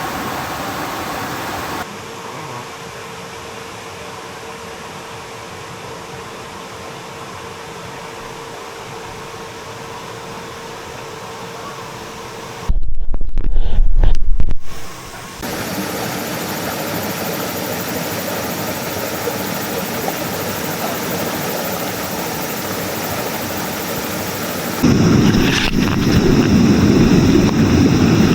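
Steady rushing noise of a stream flowing, in several cut-together takes that differ in level. About halfway through there is a brief, very loud low rumble.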